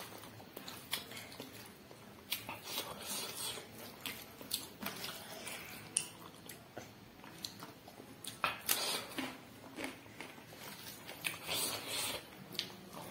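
A person chewing and biting food close to the microphone: irregular wet clicks and crunches, busiest in the second half.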